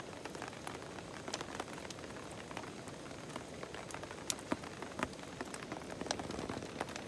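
Rain falling steadily, a constant patter broken by many sharp drop taps, a few of them louder.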